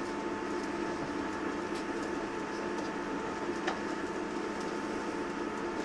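Steady cabin noise of a Class 159 diesel multiple unit, its underfloor diesel engine droning with a few steady tones over the carriage's running noise. A few faint ticks, and one sharper click about three and a half seconds in.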